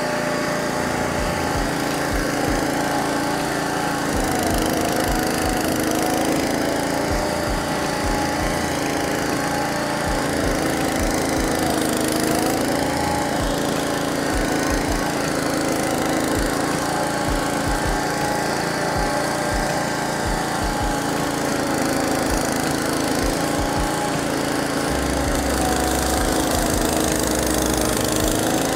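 Honda-engined Caiman Rolo 70H flail mower running and cutting tall grass. Its engine note sags and recovers every few seconds as the load changes, with scattered low thumps.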